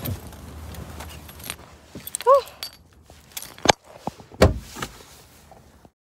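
Handling noise of a phone against a winter jacket: fabric rustling and several sharp clicks, with one brief squeak a little over two seconds in.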